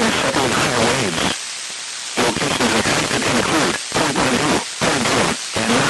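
A broadcast announcer's voice coming through a weather radio receiver, buried in heavy static hiss and breaking up into short stretches, with about a second of bare static in the middle.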